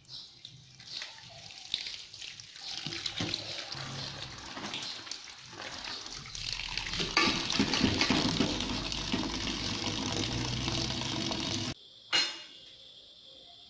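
Tap water running into a steel pot in a stainless steel sink while shredded bamboo shoots are rinsed and tipped in from a plastic colander; the water grows louder about halfway through and cuts off suddenly near the end, followed by a single short knock.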